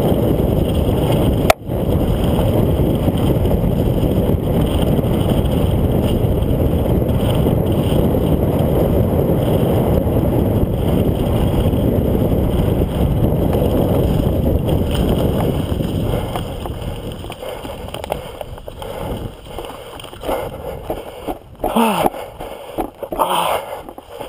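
Wind rushing over the microphone together with tyre rumble from a mountain bike running fast down a dirt trail. There is one sharp knock about a second and a half in. The noise fades after about 16 seconds as the bike slows to a stop.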